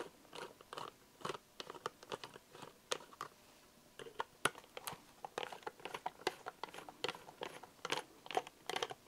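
Plastic model locomotive tender handled in a foam cradle: irregular small clicks and crunchy rubbing, with a brief lull about three and a half seconds in.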